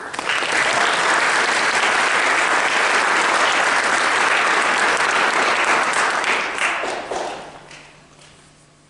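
Audience applause that starts at once, holds steady for about seven seconds, then thins to a few scattered claps and dies away.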